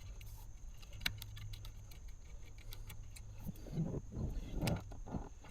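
Sharp clicks and handling rustle of small plastic wiring connectors being unplugged from a panel, over a low steady hum.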